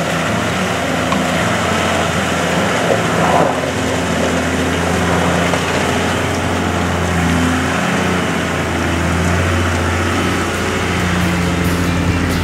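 Toyota LandCruiser 80 Series four-wheel drive's engine running steadily at low speed as it crawls through a creek and over rocks.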